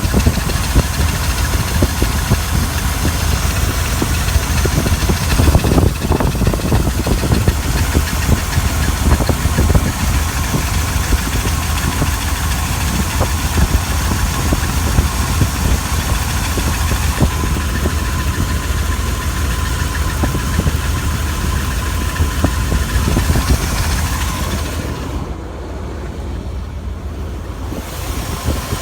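Chrysler 318 small-block V8 idling steadily, with an odd squeal over the engine rumble. The squeal is a steady tone that stands out most in the last third.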